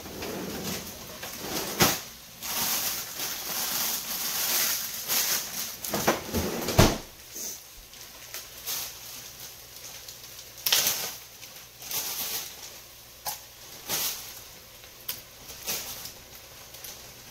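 Plastic freezer bag rustling as frozen carrot chunks are taken out and dropped into a pot, with several sharp knocks, the loudest about seven seconds in.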